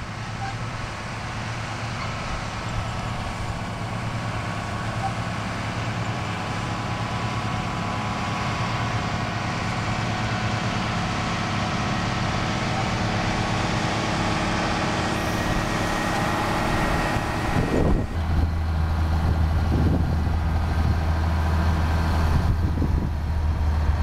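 A tractor's diesel engine running the PTO-driven John Deere 7721 pull-type combine while it threshes. It is a steady mechanical drone that grows louder as the rig comes closer. About 18 seconds in, it changes to a louder, deeper hum heard close up.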